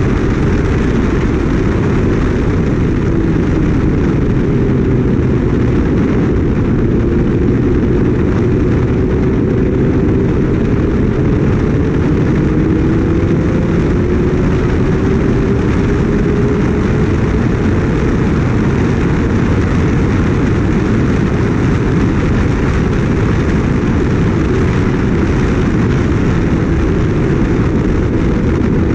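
Loud wind noise on the microphone while riding a Kawasaki Ninja ZX-6R, with the bike's inline-four engine running underneath, its pitch slowly falling and then rising.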